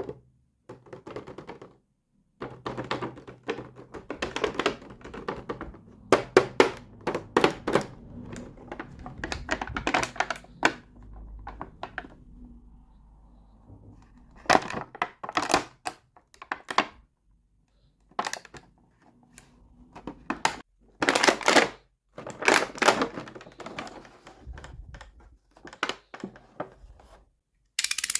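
Small plastic toy pieces being handled, unpacked and set down: irregular runs of clicks, taps and rustles with short pauses between them.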